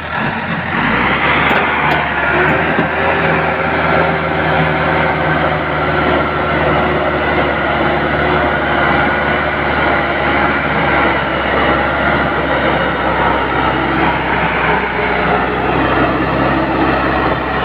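Massey Ferguson 385 tractor's four-cylinder diesel engine running steadily under load, driving a grain thresher whose drum and fans whirr along with it in a loud, continuous din.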